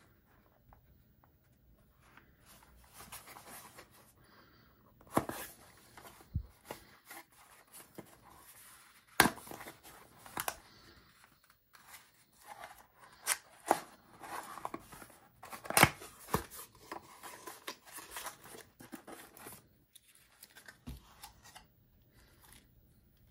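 A small cardboard box being opened by hand: the end flap is pried open, and cardboard and packaging scrape and rustle, with several sharp snaps of the card.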